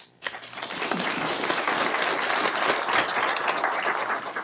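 Audience applauding. The clapping builds up within the first second, holds steady, and thins out near the end.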